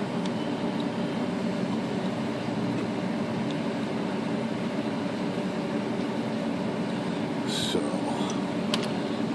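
Steady background hum and hiss at an even level. About seven and a half seconds in there is one brief scratchy sound, and a couple of faint ticks follow near the end.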